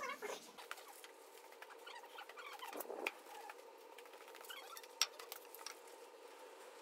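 Faint handling sounds from measuring timber with a steel tape measure: small clicks and rustles, with one sharp click about five seconds in. An animal's cry trails off at the very start.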